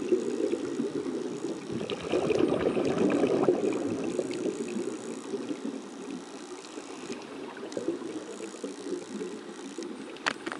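Underwater recording of a scuba diver's regulator: exhaled air bubbling and crackling as it rises, loudest about two to four seconds in. A sharp click comes near the end.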